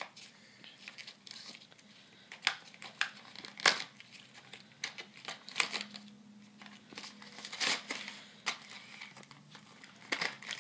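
Plastic blister packaging and cardboard backing of a Disney Cars die-cast toy car being opened: irregular crinkling and tearing with sharp snaps, the loudest about a third of the way in and again about three quarters through.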